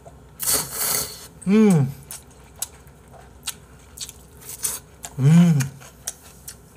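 Instant ramen noodles slurped loudly from chopsticks about half a second in, followed by chewing with small clicks of chopsticks and dishes. Twice, a short hummed vocal sound rises and falls in pitch, about one and a half and five seconds in.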